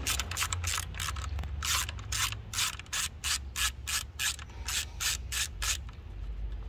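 Socket ratchet undoing a small 7 mm bolt through a long extension, its pawl clicking in quick short runs at about three strokes a second, stopping shortly before the end. A steady low hum runs underneath.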